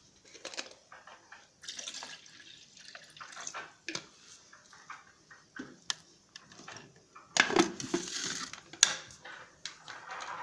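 Cooked apples, lemon and their cooking water being poured and spooned into a blender jar: irregular splashes of liquid with a few sharp knocks, loudest about seven to eight seconds in.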